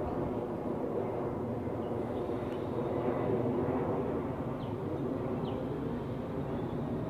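A New York City subway train pulling out of an open-air station: a steady rumble of its wheels on the rails and its traction motors.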